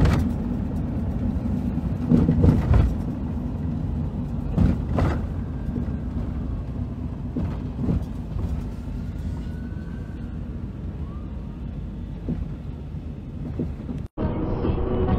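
Car cabin noise while driving: a steady low rumble of engine and tyres, with a few brief knocks. The sound cuts off abruptly near the end.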